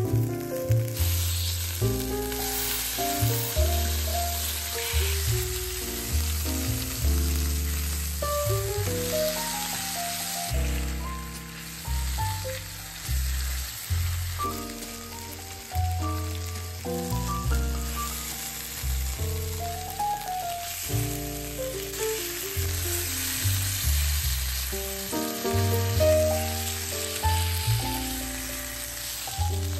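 Mustard-coated pork tenderloin sizzling in hot oil in a frying pan, a steady hiss, under background music with a bass line.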